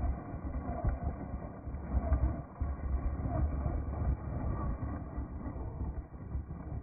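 Gusty wind rumble on the microphone, with an RC crawler's electric motor and drivetrain running underneath as the formula off-road car is driven.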